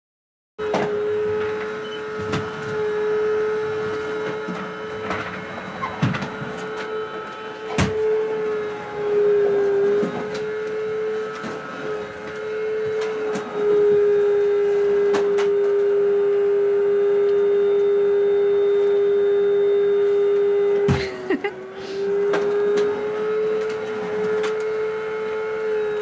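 Vacuum cleaner running with a steady motor whine whose pitch wavers slightly now and then, and a few sharp knocks.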